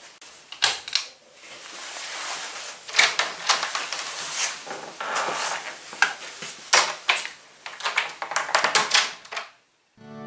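A run of irregular clattering knocks and rattles from things being handled and a door being worked. It cuts off suddenly near the end, and acoustic guitar music starts right after.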